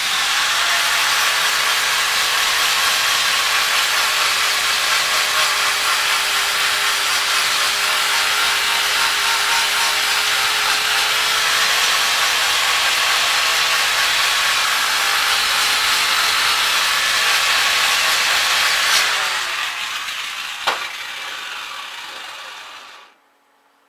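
A high-speed power tool works metal with a loud, steady hiss over its motor's constant tone. About 19 seconds in it comes off the work, and the motor winds down over a few seconds until it stops.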